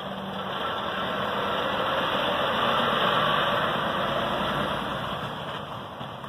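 DAF XF articulated lorry pulling a curtainsider trailer slowly past at close range. Its diesel engine and tyre noise swell to a peak about halfway through, then fade as it moves away.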